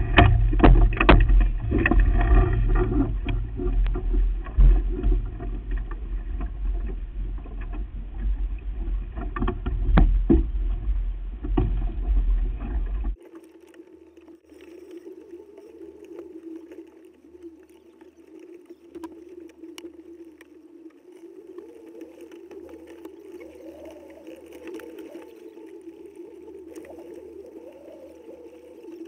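Wind and water noise of a sailboat under way, heavy and rumbling, with scattered knocks of gear. About thirteen seconds in it cuts off abruptly to a much quieter faint hum with a wavering tone.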